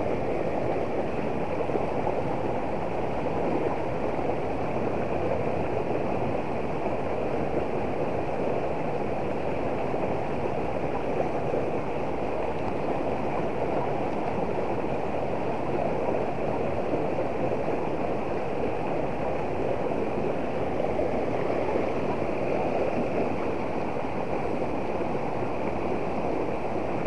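Shallow, rocky river running fast over stones and riffles: a steady rush and babble of water that does not change.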